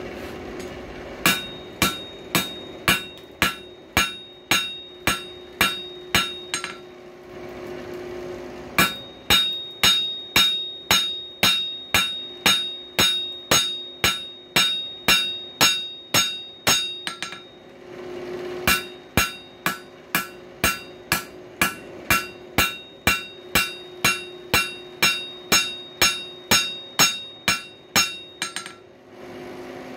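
Hand hammer striking hot coil-spring steel on an anvil, about two ringing blows a second in three runs with short pauses between them. A steady low hum sits under the pauses.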